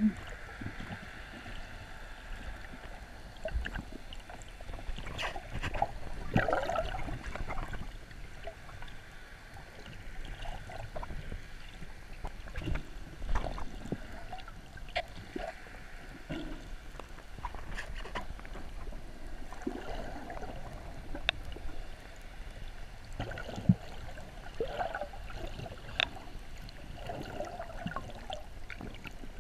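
Underwater sound heard through a camera's waterproof housing: water gurgling and bubbling, with irregular clicks and short pitch glides scattered through it.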